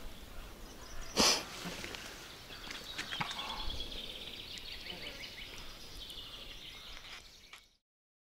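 Faint outdoor ambience with one sharp knock about a second in and a faint, rapid high-pitched chirping in the middle; the sound cuts off abruptly near the end.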